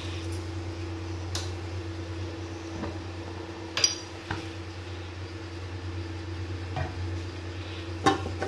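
Light metallic clinks from a lidded aluminium cooking pot over a steady low hum, the loudest clink about four seconds in. Near the end comes a louder clatter of metal as the lid is handled.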